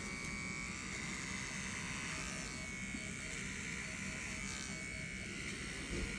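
Cordless electric pet clipper running with a steady buzzing whine as it clips the fur on a dog's foreleg.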